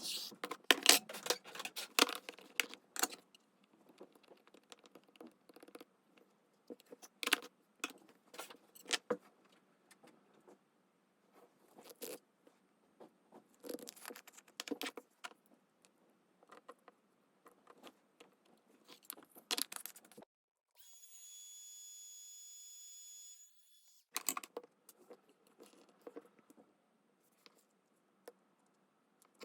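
Hands working with craft materials: clicks, taps, scrapes and rustles of paper and small hard items being handled, picked up and set down, in irregular clusters. About 21 seconds in, a steady high whine lasts about three seconds and then cuts off.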